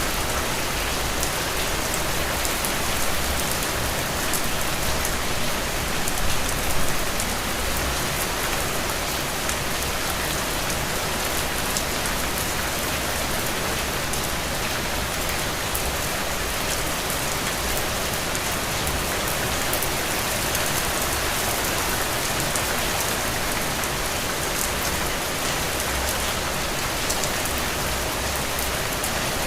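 Heavy rain falling steadily, a dense hiss with many individual drops ticking on leaves and ground.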